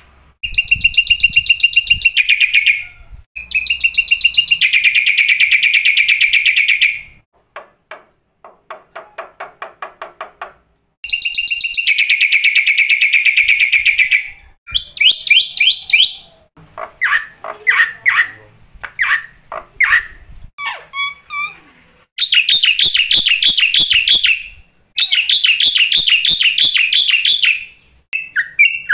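Black-winged myna (jalak putih) singing: loud rapid trilled phrases of two to three seconds each, alternating with varied chattering and whistled notes and short pauses.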